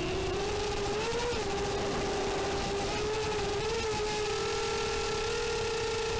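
Racing quadcopter's brushless motors (RS2205, 4S, 6040 props) whining at a steady pitch, dipping and briefly rising a couple of times as the throttle changes.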